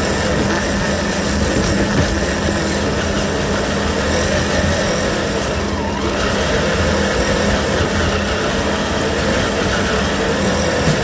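Traxxas TRX-4 RC crawler's electric motor and geared drivetrain running steadily as the truck drives along a dirt and leaf-litter trail.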